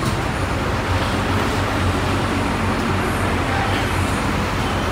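Large diesel bus engine idling steadily: a constant low hum under a noisy haze.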